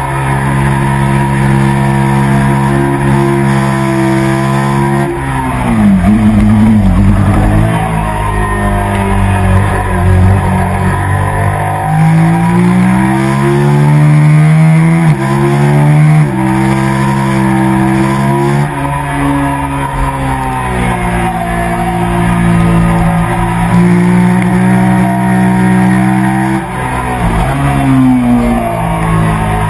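Motorcycle engine at high revs on a track lap, recorded onboard: the pitch climbs in each gear and drops sharply at each shift, falling off for a corner about five seconds in and again near the end, over steady wind rush.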